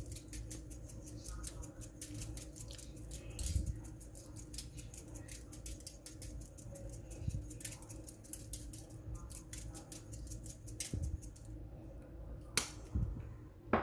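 Rosemary being handled over the chicken: a quick, irregular run of small crisp clicks and snips, several a second, with a few louder knocks near the end.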